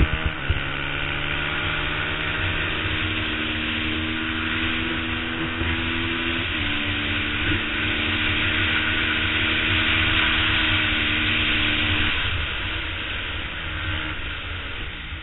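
Twin-cylinder race motorcycle engine at speed, heard from on board with strong wind rush. It holds a steady note, breaking briefly at gear changes near the start and about six seconds in. In the last few seconds the throttle closes and the note falls for the next corner.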